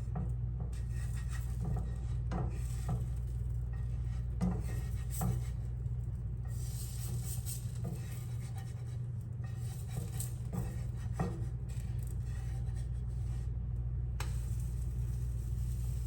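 Spatulas scraping and tapping against a pan as a pancake is worked loose and flipped: scattered light clicks and scrapes over a steady low hum.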